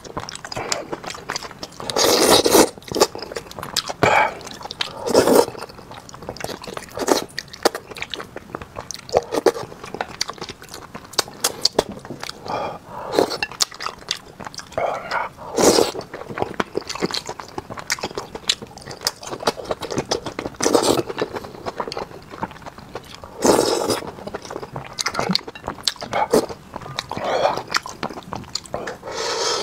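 A man eating braised fish: wet chewing and biting, with many small clicks and several louder mouth noises every few seconds.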